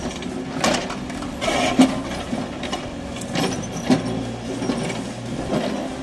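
Backhoe loader's diesel engine running steadily while its digging arm works, with about five sharp metallic clanks and knocks from the bucket and linkage.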